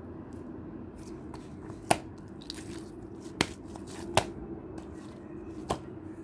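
Clear slime being worked by hand, making sharp clicking pops as trapped air bursts: four loud pops among fainter clicks, over a steady low hum.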